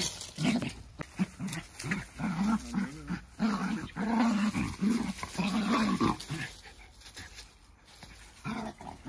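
Jack Russell terriers play-fighting, growling again and again in short, wavering growls. The growling eases off about two-thirds of the way through, then picks up again near the end.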